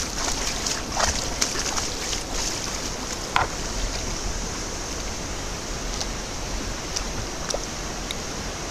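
Steady rushing of a waterfall, with a few faint short clicks in the first few seconds.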